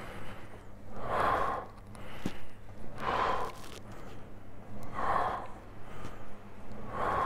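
A man breathes out hard through the mouth on each push of a seated chest press machine: four forceful exhalations, about two seconds apart, timed to the pressing effort of each repetition.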